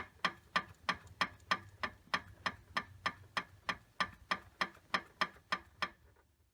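Sharp metallic clicks, evenly spaced at about three a second, fading away near the end. This is the knock of a Daihatsu Terios Kid's alternator against its mounting with the alternator bolt broken.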